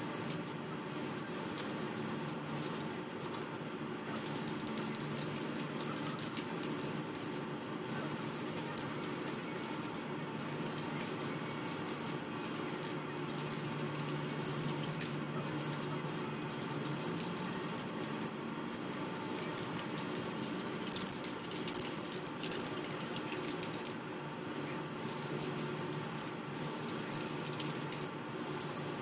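White paint being sprayed onto a plastic model hull: a steady spray hiss that drops briefly a few times, over a constant low hum.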